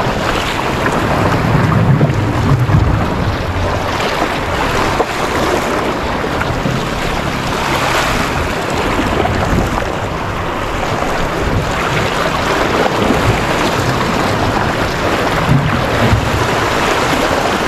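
Sea waves washing and splashing against a rocky shoreline, swelling now and then as a wave breaks, with wind buffeting the microphone.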